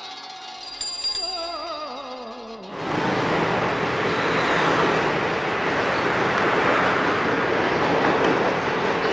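Old film music, a wavering melody gliding downward, with a short high ringing about a second in. Almost three seconds in it cuts abruptly to the loud, steady roar of a train running past amid city traffic.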